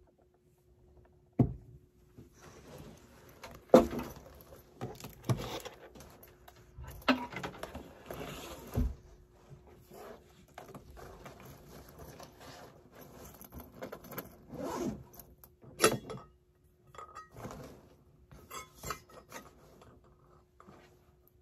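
Handling and packing a backpack: rustling, scraping and rubbing of the bag and things going into it, with several sharp knocks of objects being set down. A faint steady hum runs underneath.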